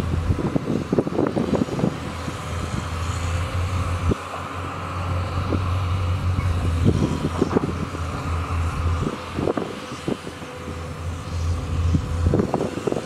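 Crawler excavators' diesel engines running steadily under load as a Matador ME220 digs wet soil, with repeated knocks and clatter from the bucket and clumps of earth.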